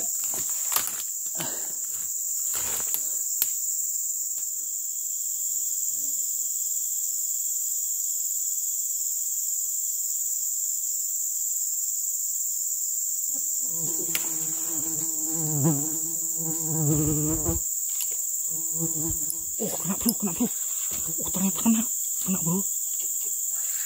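Insects droning steadily at a high pitch. A few sharp clicks come in the first few seconds, and a low voice-like sound comes in twice in the second half.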